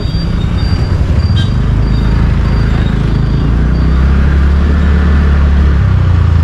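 Motorcycle engine running while riding, a low steady drone that grows stronger partway through, with road and traffic noise around it.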